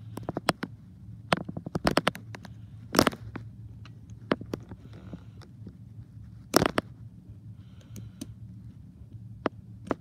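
Irregular sharp clicks and scrapes of a small tool picking glue off a toy train's circuit board, over a steady low hum.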